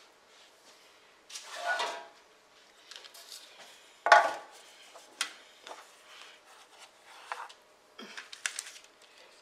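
Metal sheet pan and parchment paper being handled on a kitchen counter and wooden cutting board: a loud clank about four seconds in, among lighter knocks and scrapes.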